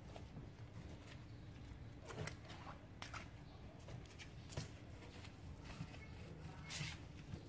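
Faint footsteps in flip-flops on a wet concrete floor, a few scattered light slaps and scuffs over a low steady hum.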